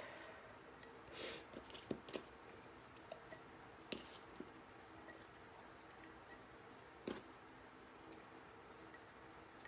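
Soft, scattered clicks and taps of cucumber spears and fingers against glass canning jars and a cutting board as the jars are packed, over a faint steady hum.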